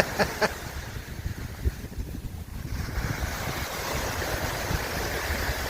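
Sea water washing over a pebble shore, with wind buffeting the microphone in low gusts; the wash eases about two seconds in and fills back in from about three seconds.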